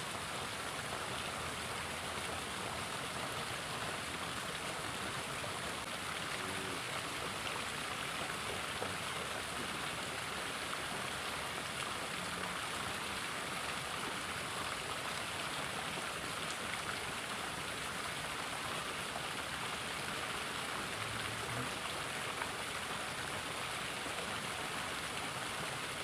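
Small river flowing, a steady even rush of moving water.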